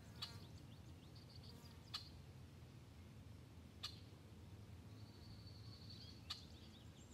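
Near silence, with faint bird chirps and a few faint, sharp clicks.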